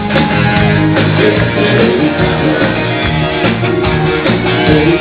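Live band playing an instrumental passage of a song, with guitar and drums, without vocals.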